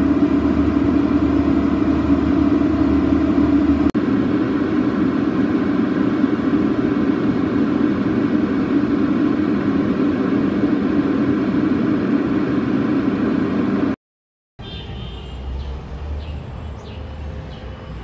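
Airliner cabin noise in flight: a loud, steady drone of jet engines and airflow with a strong low hum. About fourteen seconds in it cuts off, and a quieter steady outdoor ambience follows with a few short high chirps.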